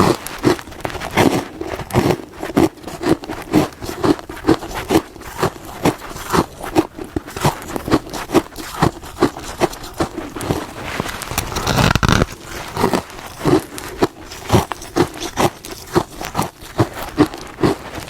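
Close-up chewing of hard freezer frost: a steady run of crisp crunches, about two or three a second, with a longer, louder crunch about twelve seconds in.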